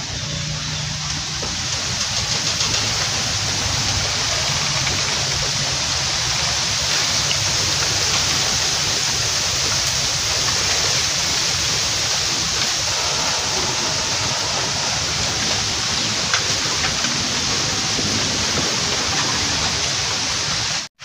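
Steady rushing hiss of running river water.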